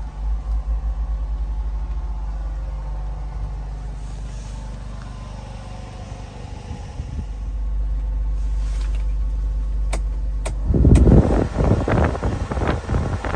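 A Subaru Sambar's small 660 cc four-cylinder engine idling steadily. A few sharp clicks come about ten seconds in, followed by louder, irregular rushing and buffeting noise near the end.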